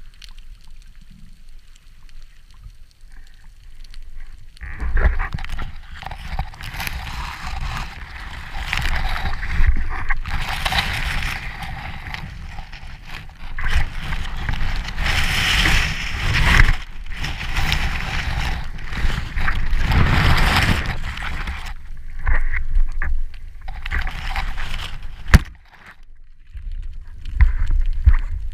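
Underwater water noise picked up through an action camera's housing as a freediver moves: muffled rushing and gurgling with a low rumble that is faint at first, swells after about four seconds and surges and ebbs irregularly. There is one sharp knock near the end.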